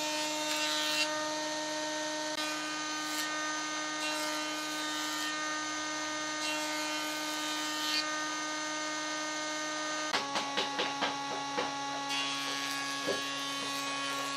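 Combination jointer-planer running with a steady humming whine, the cutterhead hissing through the wood in several short passes. About ten seconds in the hum shifts in pitch, and a quick run of light clicks and a single knock follow.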